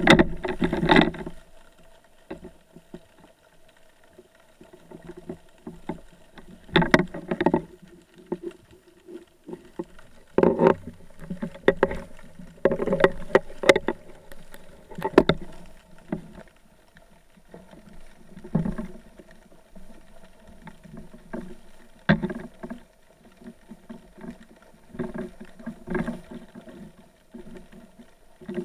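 Water sloshing and muffled knocks against an underwater camera housing as a spearfisher handles a speared turbot, coming in irregular bursts every few seconds over a faint steady hum.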